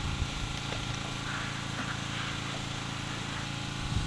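A motor engine running steadily in the background, with a couple of faint clicks early on and a low rumble near the end.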